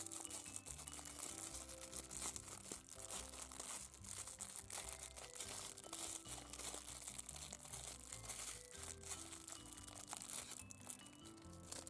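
Plastic packaging being handled, crinkling and crackling with some tearing, over soft background music with sustained low notes.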